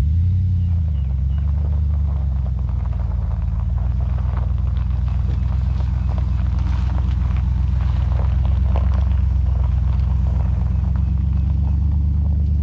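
Pickup truck engine idling steadily, its revs up briefly in the first second before settling. Light scattered clicks and rustles sit over the idle.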